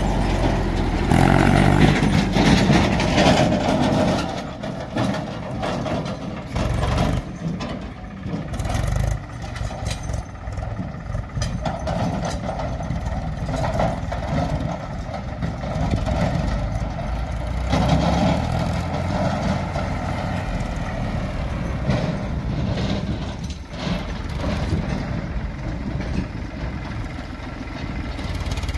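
Diesel farm tractor engines running as the tractors pull trailers, loudest in the first few seconds, with the engine note rising and falling after that.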